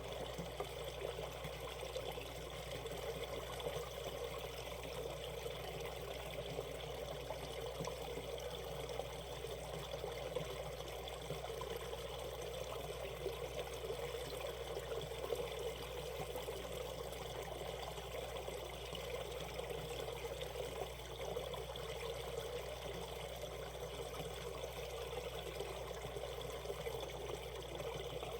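Shallow valley stream running steadily over a riffle, an even rushing and trickling of water.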